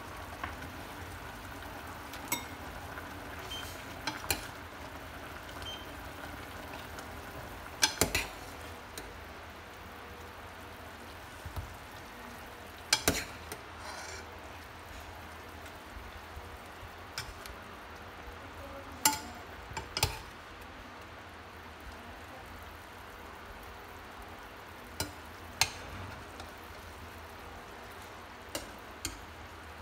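Metal ladle clinking and scraping against a stainless steel pot as braised meat and mushrooms are scooped out: scattered sharp clinks every few seconds, some in quick pairs, over a steady faint hiss.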